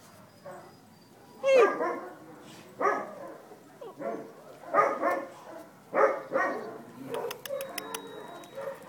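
Dachshunds barking: a series of short barks, roughly one a second, the loudest about a second and a half in. A run of faint quick clicks comes near the end.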